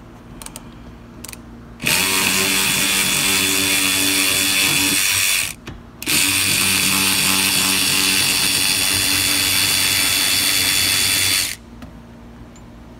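Cordless impact wrench with a T50 Torx bit running in two long bursts, about three and a half and five and a half seconds, with a short pause between, loosening the rear bolt that holds the car seat down.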